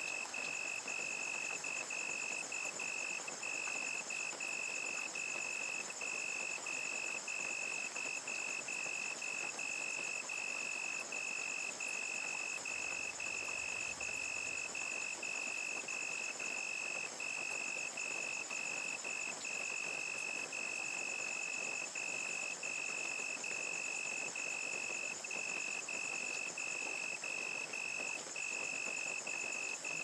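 Crickets chirping in a fast, even pulse of one high pitch, with a higher steady insect trill above, over a steady hiss of rain.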